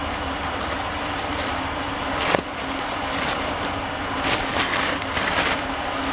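Lint-free paper towel crinkling and rustling in gloved hands as it is twisted and packed down into a threaded bolt hole in a cast-iron engine block, with a sharp click about two seconds in, over a steady background hum.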